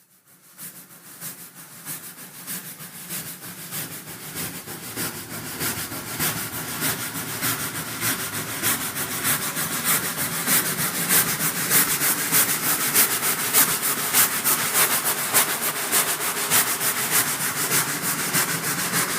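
Rhythmic scraping or crunching, about two strokes a second, fading in and growing louder over the first half, then holding steady until it cuts off at the end.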